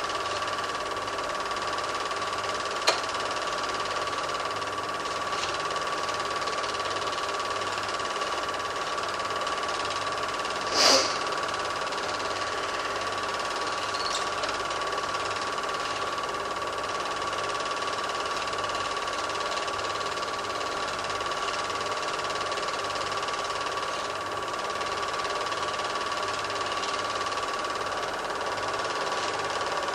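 Super 8 film projector running: a steady mechanical whir and hum, with a sharp click about three seconds in and a brief hissing burst about eleven seconds in.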